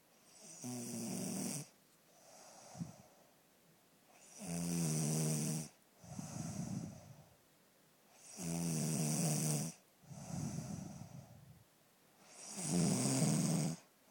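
A sleeping woman snoring in a steady rhythm. A loud, pitched snore comes about every four seconds, four in all, and each is followed by a softer breath.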